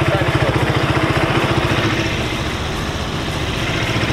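Engine of a new Zamco motorcycle idling, an even, rapid pulsing beat that eases a little about two seconds in and then picks up again.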